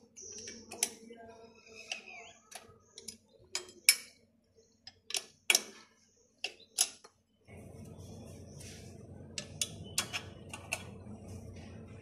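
Irregular sharp metallic clicks and taps of an Allen key fitting into and turning the mounting bolt of a motorcycle's rear disc brake caliper. About seven and a half seconds in, a steady low background noise comes in under the clicks.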